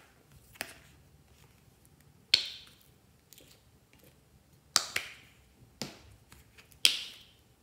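Plastic squeeze tubes of children's washable paint being handled and squeezed onto slime: about six sharp plastic clicks, each trailing off briefly, the loudest about two and a half seconds in and near the end.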